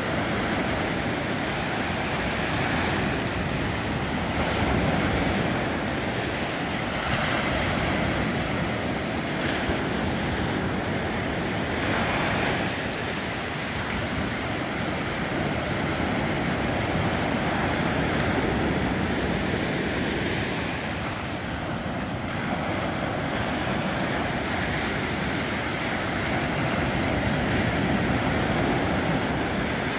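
Atlantic surf breaking and washing up a sandy beach: a steady rush of water that swells and eases every few seconds.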